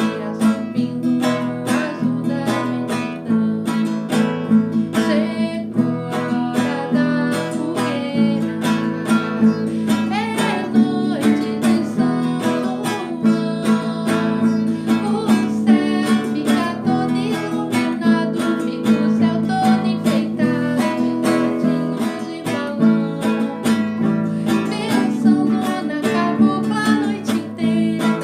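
Acoustic guitar strummed in a steady rhythm, playing a festa junina song.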